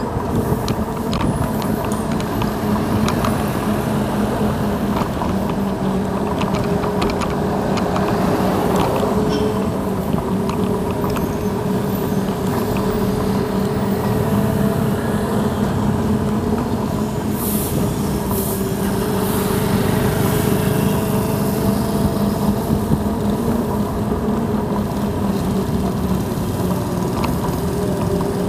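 Xiaomi M365 Pro electric scooter being ridden: a steady motor whine of several tones that drifts slightly in pitch with speed, over continuous road and tyre rumble, with scattered small knocks.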